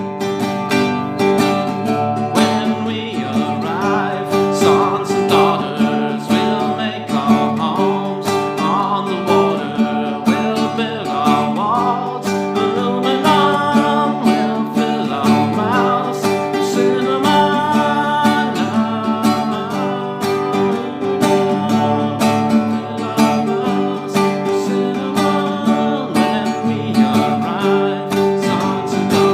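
Acoustic guitar strummed steadily in an instrumental passage of the song, with a wordless melody line over the chords from about two seconds in.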